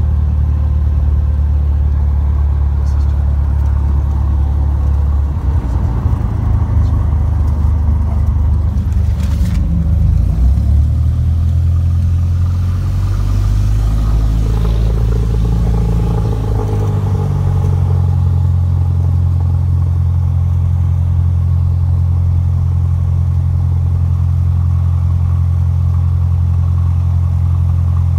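Cessna 182's six-cylinder piston engine and propeller heard from inside the cabin on the ground after landing: a loud, steady low drone. The engine note shifts between about five and seventeen seconds in, then settles. There is a single click about nine seconds in.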